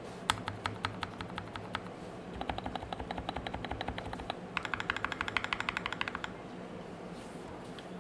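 Keystrokes on an Anne Pro 2 mechanical keyboard with Gateron Red linear switches lubed with Krytox 205g0: a few separate presses, then two fast even runs of rapid key presses, the second louder, ending about six seconds in.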